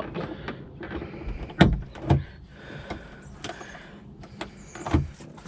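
Plastic interior trim panel being pried off with a trim tool: scraping and creaking with a few sharp clicks as its retaining clips let go, the loudest about one and a half seconds in.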